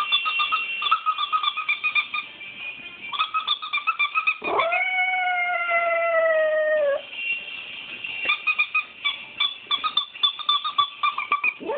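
Toy squeaker squeezed rapidly over and over, and a Shiba Inu answering with one long howl about four and a half seconds in that jumps up in pitch, then holds and sags slightly for about two and a half seconds. The squeaking then resumes, and a second howl starts at the very end.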